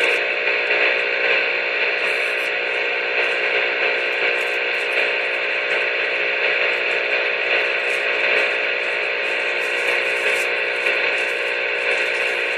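Steady electronic hiss and hum with faint crackles, unchanging throughout.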